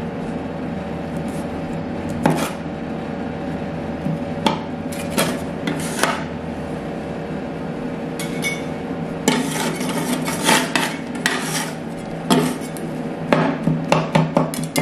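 Two steel spatulas chopping and scraping avocado on the frozen steel plate of a rolled ice cream machine. Sharp metal taps and scrapes come sparsely at first, then as a quick run of chopping strikes in the second half, over a steady hum.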